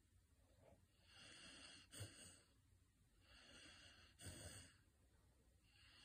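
Saint Bernard puppy snoring gently in her sleep: two slow breaths about three seconds apart, each a soft airy hiss ending in a short low puff, with a third breath starting near the end.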